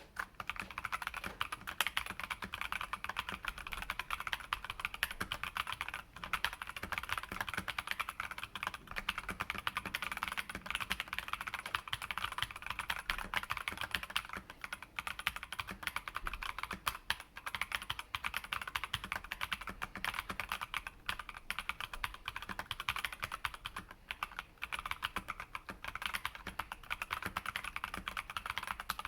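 Typing on a mechanical keyboard fitted with unlubricated Tecsee Carrot linear switches, an aluminium plate, PBT keycaps and Holee-modded stabilisers: a fast, continuous clatter of keystrokes, with brief pauses about six seconds in and near the end.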